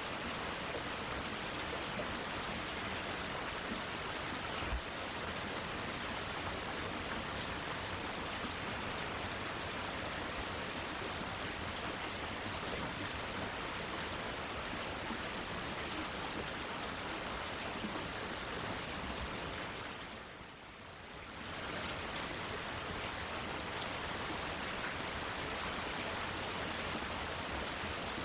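Steady rain falling, an even hiss with no letup; it dips briefly in loudness about three-quarters of the way through, and one louder drop or tap stands out early on.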